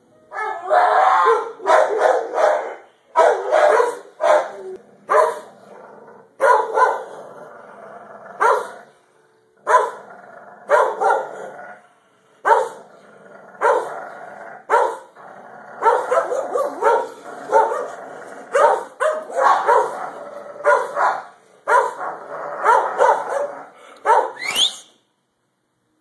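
Kenneled dogs barking over and over at irregular intervals, with drawn-out pitched cries between some barks and a rising yelp near the end: dogs complaining at being confined in their kennel runs.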